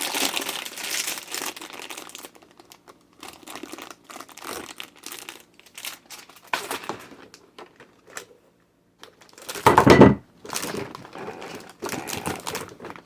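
Crinkly plastic packaging rustling and crackling as Easter basket contents are handled, with scattered clicks and one louder thump about ten seconds in.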